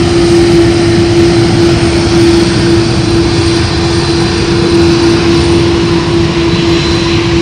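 Airbus A330's two GE CF6-80E1A4 turbofan engines running at taxi power: a loud, steady rumble with a constant droning tone on top.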